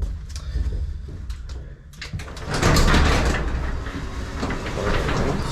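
A Chamberlain HD220 garage door opener starts about two and a half seconds in and runs on, with the door rattling and rumbling as it travels open.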